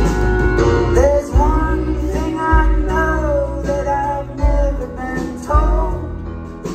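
Live rock band playing through a venue's PA, heard from the audience: a deep pulsing bass line with guitar and keyboards, and a singer's voice gliding over the top.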